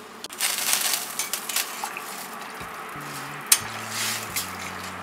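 A metal spoon stirring water into spiced chickpea gravy in a steel pressure cooker, the liquid sloshing and the spoon clinking against the pot, with one sharp clink about three and a half seconds in. Low background music comes in near the end.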